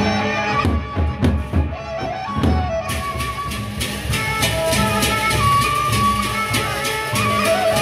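Lombok gendang beleq ensemble playing: the large double-headed barrel drums beat under a sustained melody line. The clashing hand cymbals drop out for about two seconds, then come back in about three seconds in with a fast, steady beat.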